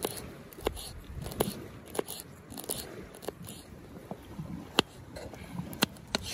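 A folding pocket knife chopping vegetables (onion, then a carrot) on a plate: irregular sharp taps of the blade striking the plate, roughly one every half second to second, with crunching of the cuts. Low wind rumble runs underneath.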